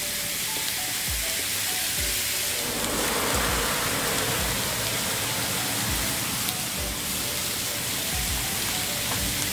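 Steaks, sausages and zucchini sizzling steadily on a hot aluminium grill plate over a gas cartridge stove, the frying hiss growing a little fuller about three seconds in. Quiet background music with a soft beat runs underneath.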